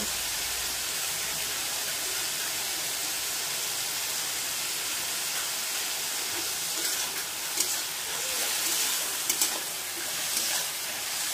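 Ridge gourd pieces sizzling in hot oil in a metal kadai, a steady hiss. From about seven seconds in, a metal spatula scrapes and clacks against the pan a few times as the pieces are stirred.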